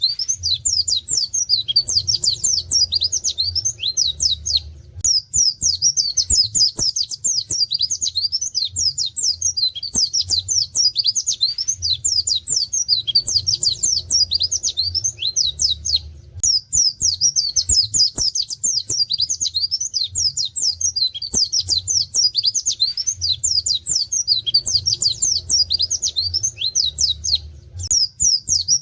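White-eye (pleci) singing a fast, rapid-fire 'tembakan' song of quick, high, falling notes with 'wit wit' and canary-like phrases. It comes in bouts of a few seconds, broken by short pauses.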